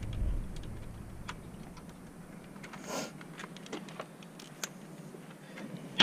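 Irregular light metallic clicks and taps of a socket ratchet and sockets being handled, with a brief scrape about three seconds in.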